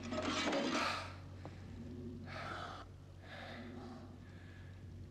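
A person breathing hard after exertion: a few heavy, gasping breaths, the strongest at the start, over a steady low hum.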